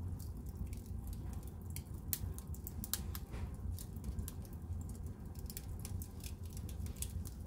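Wood fire crackling in a fireplace: frequent, irregular sharp pops and snaps over a steady low rumble.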